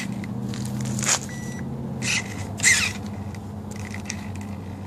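Hands handling the wiring and chassis of a homemade RC truck: a few short rustles and scrapes, with one brief electronic beep about a second in, over a low steady hum.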